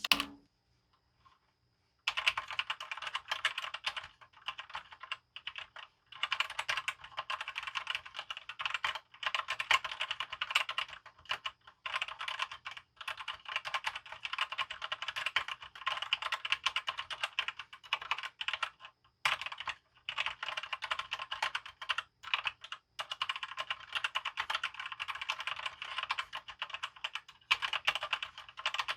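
Fast typing on a Velocifier VM02WS full-size mechanical keyboard with TTC red linear switches and ABS double-shot keycaps: a dense clatter of keystrokes starting about two seconds in, with a few brief pauses.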